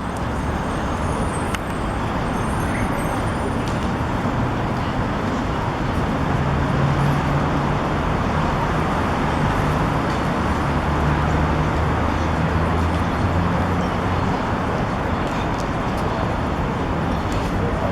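Steady city street traffic noise from passing cars, with a vehicle engine's low hum standing out through the middle.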